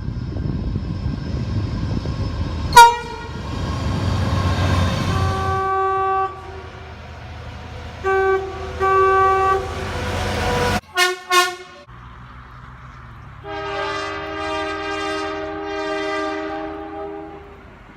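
Train horns sounding multi-note chords across several cut-together clips. First a train rumbles past with its horn going and a sharp click about three seconds in; then a few short blasts, two quick toots, and one long blast near the end.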